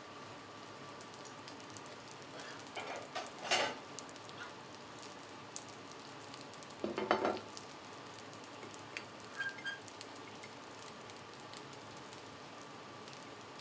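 Chicken wings sizzling on a hot flat-top griddle, a steady crackle. Two brief clatters of a bowl and plate being handled stand out, about three and a half and seven seconds in.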